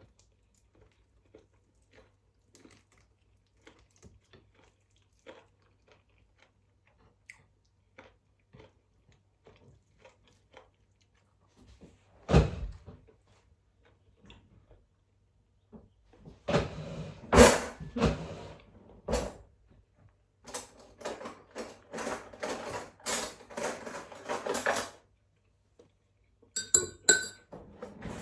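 Cutlery and dishes clinking during a meal. Faint small clicks at first, a loud knock about halfway through, then loud clattering and a run of rapid clinks of utensils against dishes.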